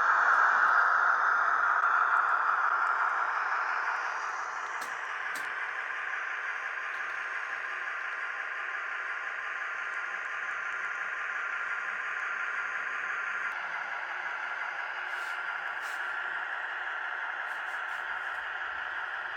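Model train (a Märklin V 200 diesel locomotive model hauling a rake of coaches) running on the track: a steady rolling hiss, louder for the first four seconds and then softer and even, with a few faint clicks.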